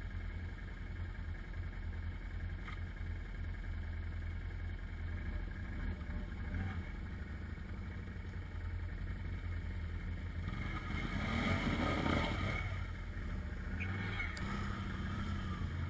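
ATV engine idling steadily close by. A little past the middle, another ATV revs up for a couple of seconds as it drives out of a muddy water hole.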